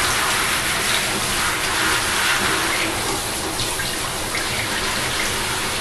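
Water running steadily from a handheld shower sprayer into a bathtub, spraying over a wet pug being bathed.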